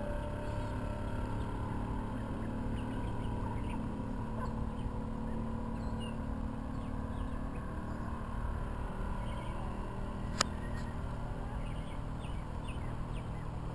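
Mercury-powered speedboat engine running at a distance as a steady low drone, with short faint chirps scattered through it. A single sharp click about ten seconds in.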